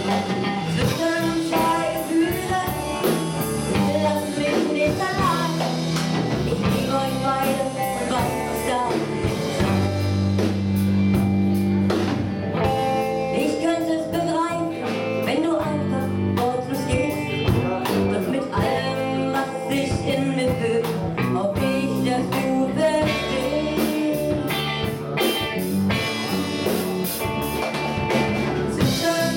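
Live rock band playing: a woman singing into a microphone over electric guitar, electric bass and drum kit.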